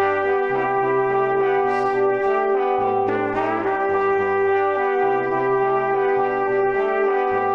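Brass quartet music: trumpets and trombones hold a sustained chord over a low line that steps to a new note every one to two seconds.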